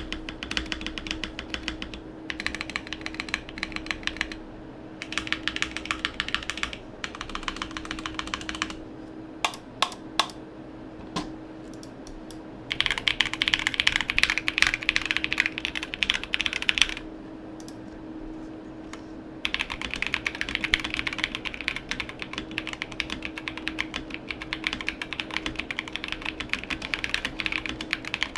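Typing on a Drop ALT mechanical keyboard fitted with Drop + Invyr Holy Panda tactile switches and MT3 keycaps: fast runs of key clacks with short pauses. There are a few single keystrokes around ten seconds in, and a pause of about two seconds after the loudest, densest run just past the middle.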